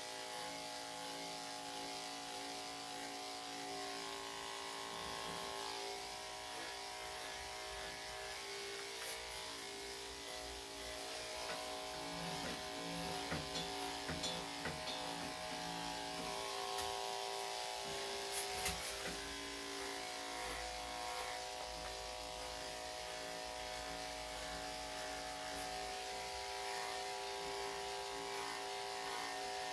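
Electric dog grooming clippers with a #3 3/4 blade running steadily while clipping a Yorkshire Terrier's coat, with short rises in loudness every second or so.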